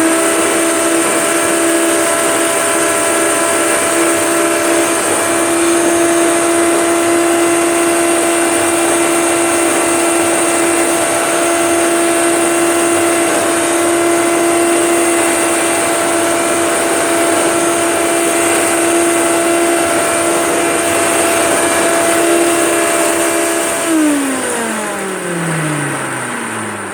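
Hoover Turbomaster vacuum cleaner running at a steady pitch. It is switched off about 24 seconds in, and the motor winds down with a smoothly falling whine.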